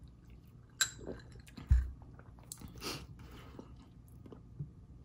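Soft eating and drinking sounds: a sip through a straw from a glass of iced drink, a glass clink, and a dull thump a little under two seconds in as the glass is set on the table, then quiet chewing of fried potatoes.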